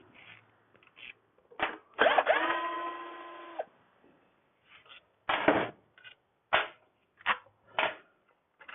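An electric power driver spins up with a rising whine and runs steady for about a second and a half, removing fasteners on a scooter. Short metallic clicks and knocks of tools on metal come before and after it.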